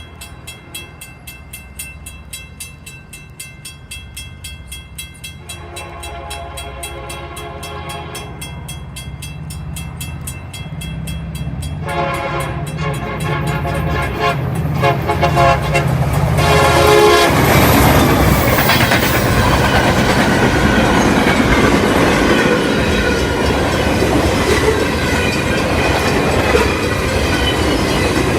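Union Pacific diesel locomotive approaching at speed with its engine rumbling, sounding two chord horn blasts: the first about five seconds in, the second about twelve seconds in and lasting some four seconds. It then passes loud and close, with steady wheel and rail noise from the train.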